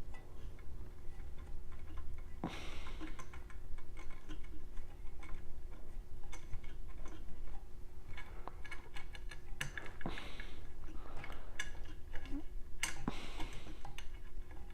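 Irregular small metallic clicks and ticks of a hex key and bolt being worked as a T-nut is tightened into the 3D printer's frame bar, with a few brief scraping rustles, over a faint steady hum.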